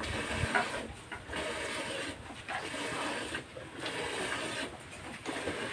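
Hand milking a cow into a steel bucket: streams of milk squirting into the pail with a hissing, rasping sound, in repeated spurts broken by short pauses about every second.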